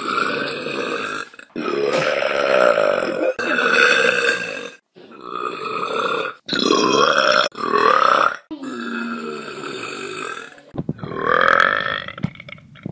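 A young woman burping loudly, about eight long burps one after another with short breaks between them, some bending up and down in pitch.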